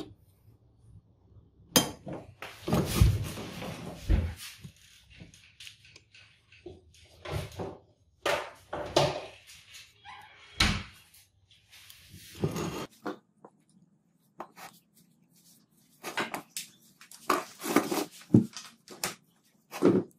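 Handling noise at a work surface: a paper template rustling and a scatter of sharp knocks as a small metal block and a marker are set down and moved on the bench, coming in irregular clusters with quiet gaps between them.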